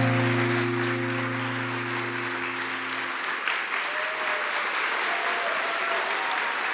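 Assembly applauding in praise, over the held closing chord of the worship music, which stops about three seconds in while the clapping goes on.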